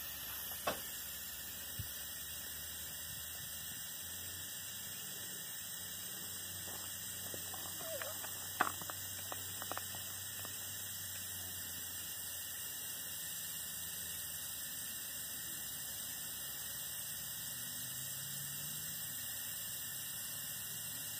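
Steady hiss of air being driven through a small live-steam locomotive's blower and smokestack to draw up the fire while it is lit for the first time, with a few sharp clicks and brief squeaks around 8 seconds in.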